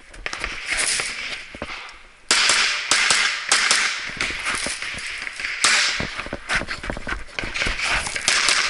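Semi-automatic pistol fired in rapid strings of shots, with short pauses between strings.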